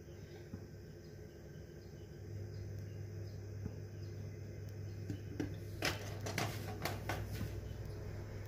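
Quiet kitchen handling while cooking oil is poured from a plastic bottle into a nonstick kadai: a steady low hum that firms up a little over two seconds in, and a few light clicks and knocks in the last few seconds.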